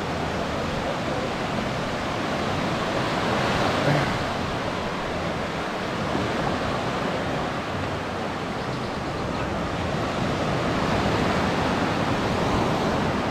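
Surf breaking and washing up on a sandy beach, a steady rush of wave noise that swells and eases, most strongly about four seconds in and again near the end.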